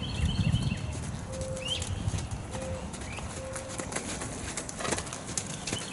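A horse's hooves thudding on arena sand at a trot, heaviest in the first second. Over it a dove coos three short notes about a second apart, and small birds chirp.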